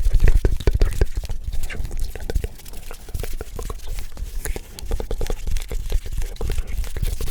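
Close-miked ASMR hand sounds: a fast, irregular run of small clicks and soft low thumps from hands moving right at the microphone.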